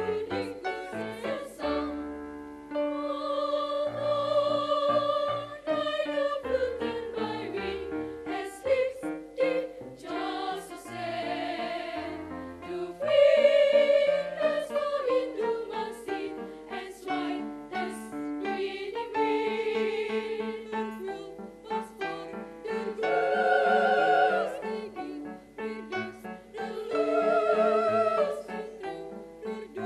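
Girls' choir singing in harmony, several voice parts together, holding long notes.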